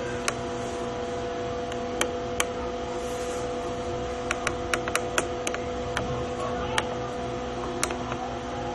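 A steady electrical hum, several constant tones over low noise, with about a dozen sharp clicks scattered through it, bunched most thickly in the middle.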